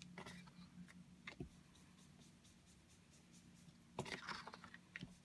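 Faint scratchy rustling of an ink blending brush and card stock being worked on paper, with a louder scratchy patch about four seconds in.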